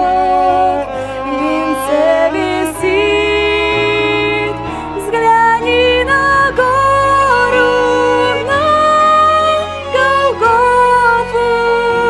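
Music: a slow Christian song, a pitched melody line gliding between held notes over a steady bass accompaniment.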